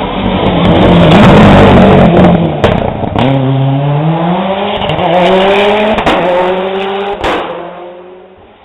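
Rally car passing close at full throttle, then pulling away under hard acceleration. The engine is loudest a second or two in, then climbs in pitch, drops at a gear change, climbs again and fades near the end, with a few sharp cracks along the way.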